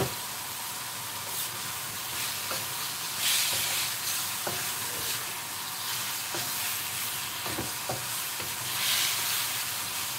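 Marinated turkey and vegetables sizzling in a hot wok on a gas burner while being stirred with a wooden spatula, with light scrapes and knocks against the pan. The sizzle swells twice, once about a third of the way in and again near the end.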